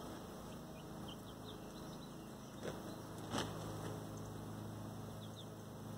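Faint, scattered short peeps from young chickens, with two soft taps about halfway through.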